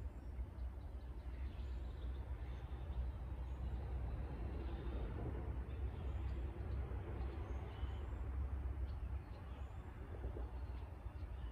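Outdoor lakeside ambience: a steady low rumble with a swell of rushing noise around the middle, and scattered faint bird chirps.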